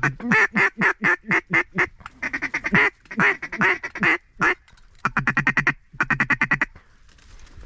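Mallard duck call blown as a run of loud quacks, each bending down in pitch, then two quick strings of fast, even chatter about five and six seconds in, a feed call. It is a calling sequence meant to draw passing mallards to the decoys.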